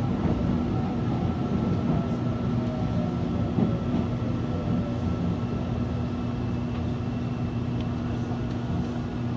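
Seoul Subway Line 1 electric train running at steady speed, heard from inside the train: an even running noise with a constant motor hum.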